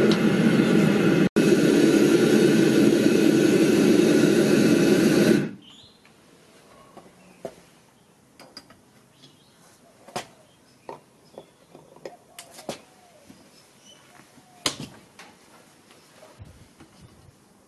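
A gas-fired furnace burner running with a loud, steady rush, cut off suddenly about five seconds in. After that come scattered light metal clinks and taps of steel tongs and a skimming spoon against the furnace lid and the crucible.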